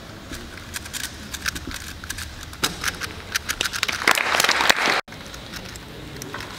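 Quick, irregular plastic clicks of a 3x3 Rubik's cube being turned. Near the end a louder rustling burst lasts under a second and then cuts off abruptly.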